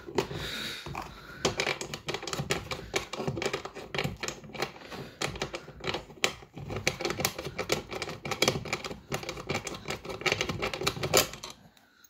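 A fast run of small, sharp metal clicks, several a second and slightly irregular, while the 17 mm anchor bolt of a seat belt is worked loose and unscrewed. The clicks stop just before the end.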